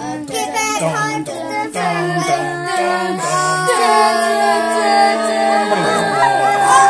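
Children singing a wordless tune: a few short stepped notes, then a long held note that drops in pitch near the end.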